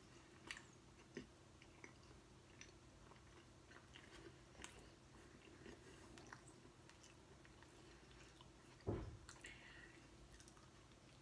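Faint chewing of a mouthful of cheese sandwich, with small scattered mouth clicks, and a single soft thump about nine seconds in.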